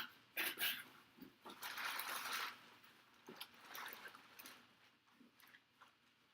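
Rustling and scraping of cardboard and plastic packaging as a boxed football helmet is unpacked, with a few small knocks and clicks; the longest rustle comes about two seconds in, then the handling dies down.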